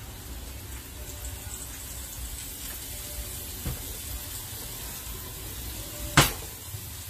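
New York strip steaks sizzling steadily in a seasoned carbon steel frying pan, with one sharp knock about six seconds in.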